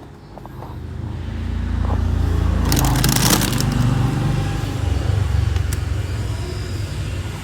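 Intro sound effect: a low rumble swells up, a crackling crash hits about three seconds in, then a low drone holds.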